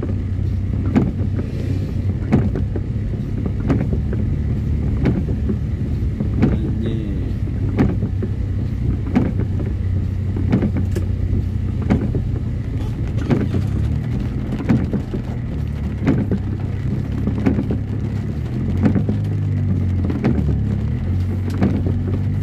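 Car engine running steadily, heard from inside the cabin, with the windscreen wipers knocking at the end of each sweep about every second and a quarter.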